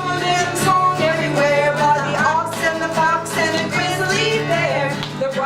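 A song with singing voices over guitar accompaniment.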